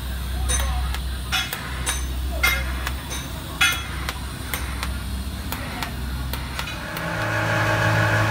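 Sharp metallic taps, about two a second, on a stainless exhaust being fitted under a car, over a steady low hum. About seven seconds in, a louder steady running sound with a low hum starts, like the car's engine being started to idle.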